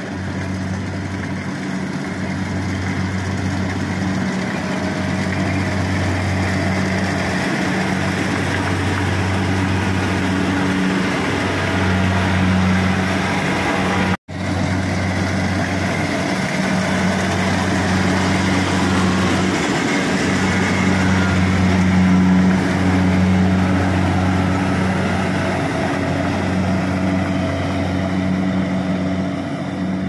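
Kubota DC-70 Pro combine harvester running while it cuts and threshes rice: a steady low engine hum under a broad mechanical noise. The sound cuts out for an instant about halfway through.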